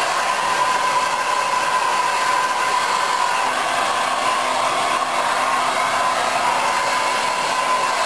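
Handheld hair dryer running steadily, blowing air through damp hair. A steady whine sits over the rush of air.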